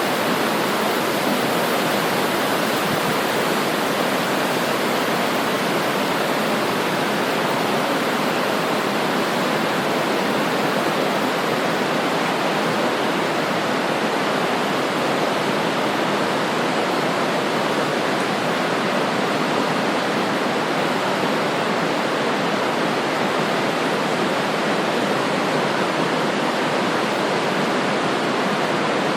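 Swift river current flowing, a steady, even rush of water.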